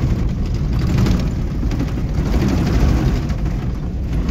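A vehicle's engine running steadily as it travels, with a heavy low rumble.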